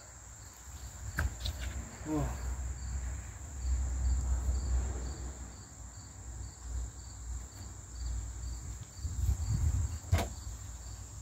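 Insects chirring steadily in the background: a continuous high buzz with a softer chirp pulsing about twice a second. A low wind rumble on the microphone comes and goes, and a sharp click sounds near the end.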